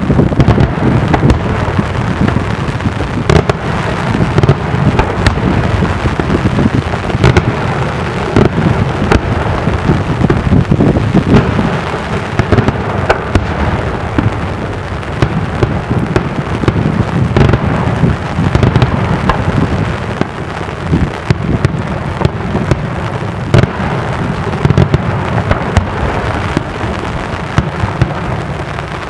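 Daytime aerial fireworks: shells bursting in a dense, unbroken run of bangs, one on top of the next.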